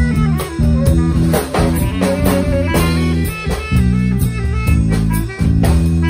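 Live jazz band playing: an electric bass line and a drum kit with cymbals under a saxophone.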